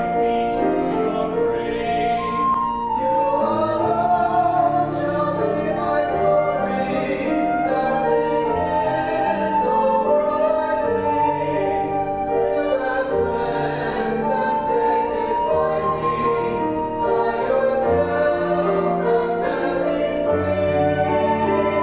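A small mixed group of men and women singing a hymn in harmony through microphones, accompanied by grand piano and flute.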